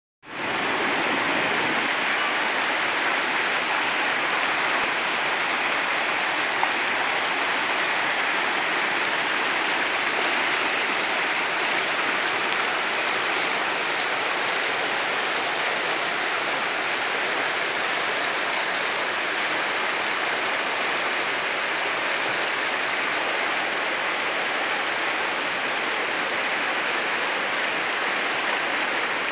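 Fast mountain stream rushing over boulders in white water, a steady, even rush.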